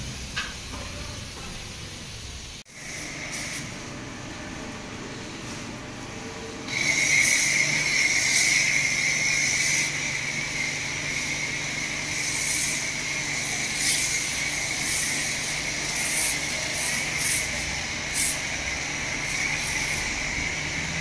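Car-wash pressure washer spraying a car, a steady hiss that gets much louder about seven seconds in as the jet comes closer or strikes the body directly.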